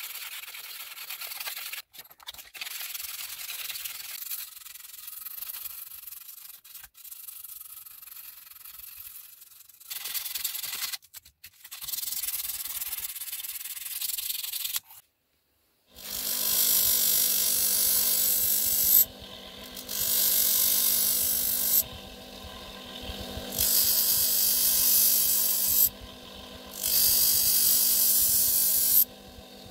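Sanding a rusty pocket knife's metal parts: first rubbing strokes of abrasive on steel, then a powered sanding machine running with a steady hum. From about halfway, the workpiece is pressed against the machine in four stretches of about three seconds, each a loud hiss.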